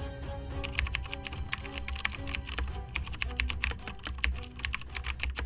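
Fast, irregular typing clicks, like keys struck in quick succession, over background music; the typing stops suddenly at the end.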